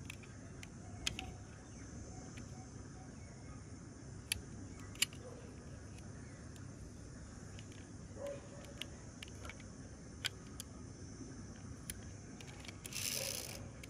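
A few sharp, scattered clicks and taps from a small die-cast metal toy pickup truck being turned over in the fingers, over a faint steady outdoor background hiss, with a brief rustle near the end.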